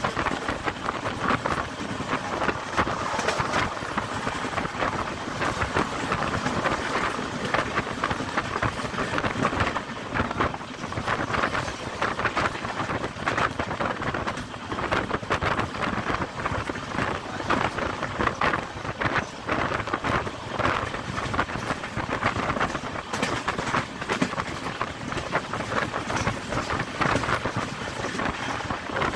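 A moving train heard from on board: steady rushing wheel-on-rail noise with constant irregular rattling clicks, and wind on the microphone.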